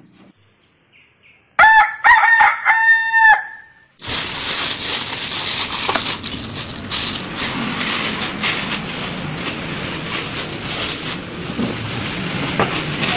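A rooster crows once, a loud cock-a-doodle-doo of under two seconds. Then, about four seconds in, a steady crinkly rustling of plastic bags as raw meat is tipped out of a bag into a metal bowl.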